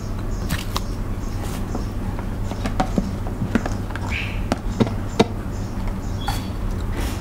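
Plastic container handled, tipped and shaken, with sauce and seafood pieces dropping onto a plastic-covered table: a run of light knocks and wet clicks over a steady low hum.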